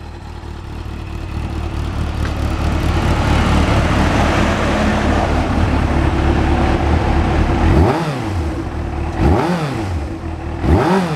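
Suzuki GSX400 Impulse inline-four engine breathing through a Yoshimura aftermarket muffler, idling and growing louder over the first few seconds. Near the end it is revved in three quick throttle blips, each rising and falling in pitch.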